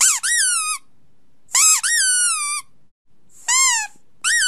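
A series of four high-pitched squeaks. Each starts sharply, jumps up in pitch and slides back down. The last, near the end, is drawn out at a steady pitch.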